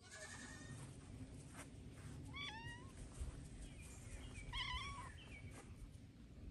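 A cat meowing twice, two short meows about two seconds apart, over a faint low background rumble.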